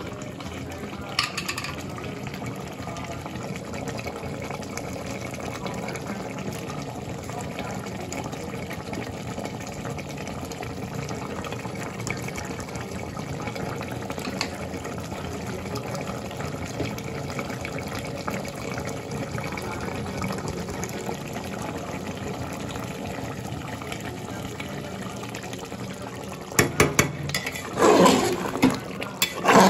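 Mutton curry simmering in an open aluminium pressure cooker, a steady watery hiss and bubbling. Near the end the steel ladle scrapes and knocks against the pot in a short run of louder clatters as the curry is stirred.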